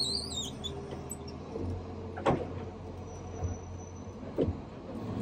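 Boat engine idling with a low steady hum. A few sharp knocks land over it, the loudest a bit over two seconds in, and a brief high wavering squeak sounds at the very start.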